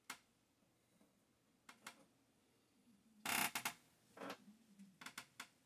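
Handling noise on a workbench: a few light clicks and knocks, with a louder clatter about three and a half seconds in.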